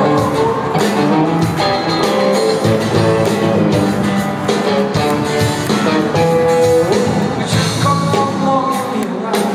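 Live band performing a song in a concert hall, heard from the audience: a male singer with acoustic guitar, backed by drums and band.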